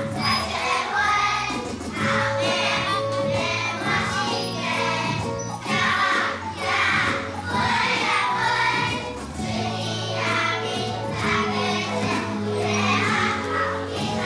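A group of children chanting a rhyme together in a steady rhythm over backing music, with light jingling percussion.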